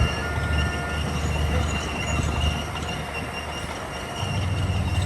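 Crawler bulldozer's diesel engine running under load, with a thin, high metallic squeal of the kind crawler tracks make; the engine gets louder about four seconds in.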